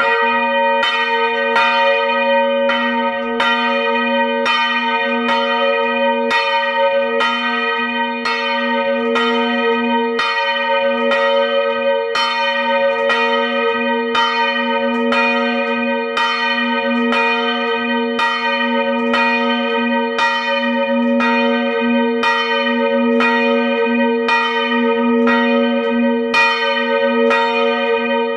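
Large bronze church bell swung by hand on a rope, its clapper striking about three times every two seconds over a continuous ringing hum.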